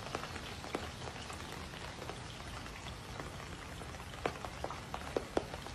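Light rain falling on a swimming pool's water and wet tile edge: a steady soft hiss with scattered drop ticks, and a few louder single drops near the end.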